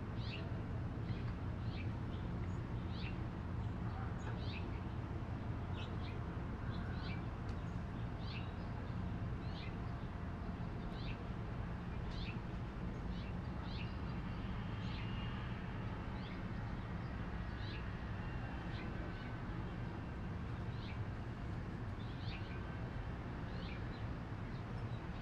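A bird calling over and over in short, falling chirps, about one a second and sometimes in pairs, over a steady low rumble.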